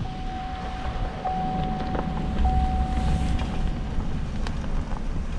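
Vehicle driving slowly, heard from inside the cab: a steady low engine and road rumble with a thin steady whine that stops a little under four seconds in.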